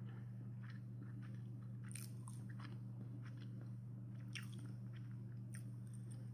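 Faint chewing of a sticky glutinous rice dumpling, with small wet mouth clicks scattered throughout, over a steady low hum.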